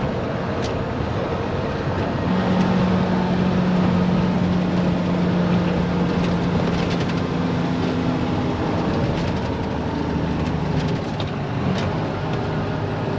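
Semi-truck engine running while driving, heard inside the cab over road noise. The engine note holds steady for several seconds, then shifts pitch a few times in the second half.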